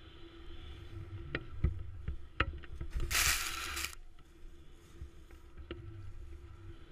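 Snowboard riding through deep powder: a steady low rumble with a few sharp knocks, and a loud hiss of spraying snow for about a second in the middle during a turn.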